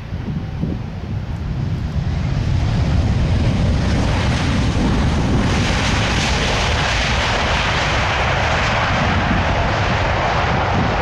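Airbus A350 jet engines (Rolls-Royce Trent XWB) on the landing roll-out. They grow louder from about two seconds in and turn brighter and hissier around the middle, then hold a loud, steady rush, typical of reverse thrust just after touchdown.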